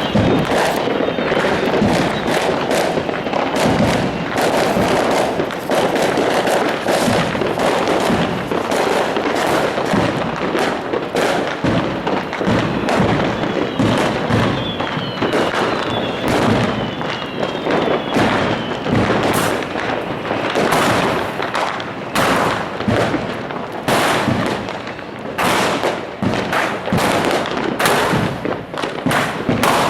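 Dense fireworks: many bangs and crackles in quick, overlapping succession, with a few faint whistles.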